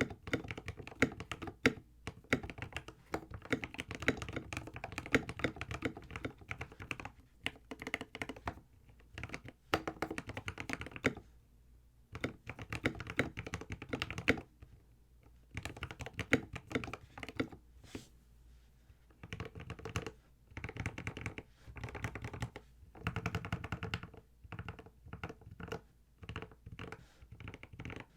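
Epomaker TH66 custom mechanical keyboard being typed on: quick runs of key clacks in bursts of a few seconds, with short pauses between them.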